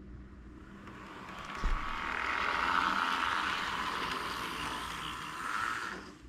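HO scale model train running past on its track: the locomotive's motor and the rolling wheels build up over the first two seconds, hold steady, and fall away quickly about six seconds in. A brief low knock about two seconds in.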